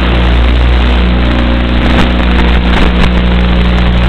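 Onboard sound of an E-flite UMX Habu's electric ducted fan running in flight, picked up by the plane's own FPV camera: a loud, steady rushing noise with a steady low hum underneath.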